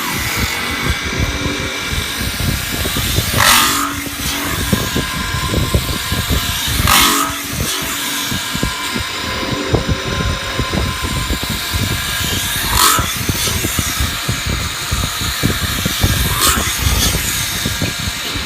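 CNC metal spinning lathe running, a steady machine rumble with a louder burst reaching high up, about four times at intervals of three to six seconds.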